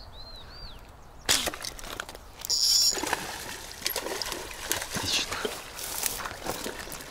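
A slingshot fishing dart is shot at a carp in shallow water, with a sudden sharp smack a little over a second in. Irregular splashing and sloshing follow for several seconds as the speared common carp thrashes in the water.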